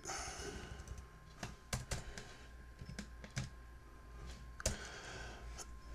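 Computer keyboard keys pressed one at a time in a few separate, spaced-out clicks, the typing of someone correcting a misspelled command in a terminal. A faint steady tone sits behind them.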